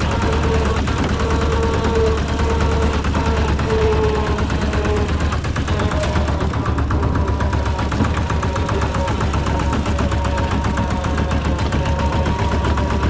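Rice combine harvester's diesel engine running steadily, with a fast, even chugging and a wavering whine.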